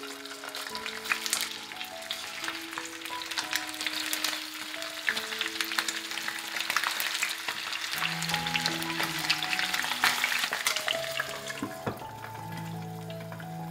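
Raw chicken thighs sizzling and crackling in hot oil in a frying pan, with many sharp spits and pops. Near the end a knock as a glass lid is set on the pan, after which the sizzle is quieter.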